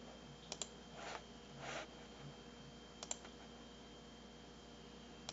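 Computer mouse clicking: a quick pair of clicks about half a second in and another about three seconds in, with two soft swishes between them, over a faint steady hum.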